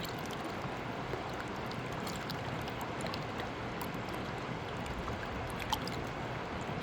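A steady, even rushing noise with a few faint high ticks scattered through it.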